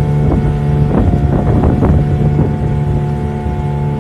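A boat's motor running steadily underway, with wind rumbling on the microphone and a cluster of short slaps about a second in.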